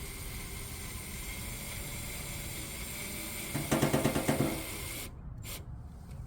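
Power drill driving a screw into the mailbox: a loud burst of rapid clicking, about a second long, about three and a half seconds in, over a steady hiss that cuts off near the end.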